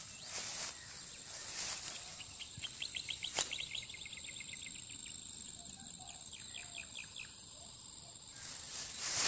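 Open-field ambience: a steady high-pitched insect drone, with a bird's fast run of short chirps heard twice, about two and six seconds in. Soft swishes of footsteps moving through tall grass, and one sharp click a few seconds in.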